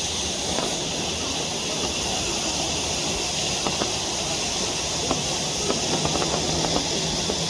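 Waterfall's steady rushing water, with a few faint short ticks near the end.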